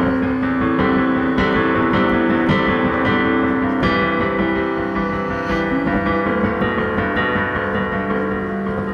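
Instrumental break of a rock song, with keyboard chords held and sounding prominently and no singing.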